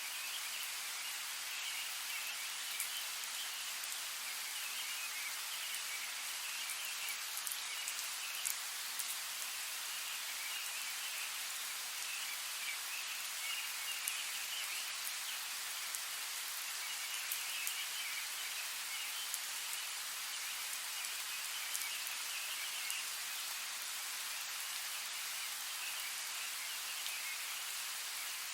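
Steady rainfall in woodland: an even hiss with scattered sharp drop ticks. A faint high trilling comes and goes in patches.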